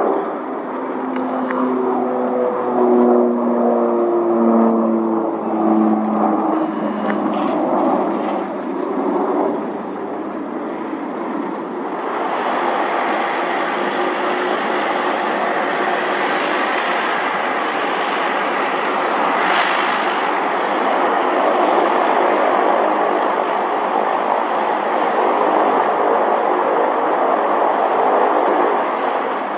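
Airplane engines running: a set of tones steps downward in pitch over the first ten seconds or so, then from about twelve seconds in a steady, louder engine rush with a high whine.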